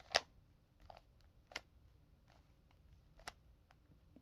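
Plastic clicks and clacks of a stiff Rubik's Cube as its layers are turned: a few sharp snaps, the loudest just after the start, with fainter ticks between.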